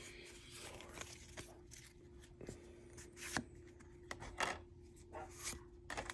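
Pokémon trading cards being flipped through by hand, each card slid off the stack: several faint, short papery swishes and flicks.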